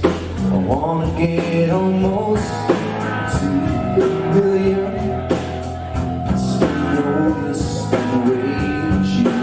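Live rock band playing a song: guitar, bass and drum kit on a steady beat, with a male voice singing the lead.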